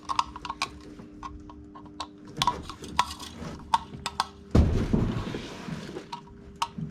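Small clicks and knocks of hands working with cable, screws and tools, with a louder rustling thump about four and a half seconds in that lasts over a second. A faint steady hum runs underneath.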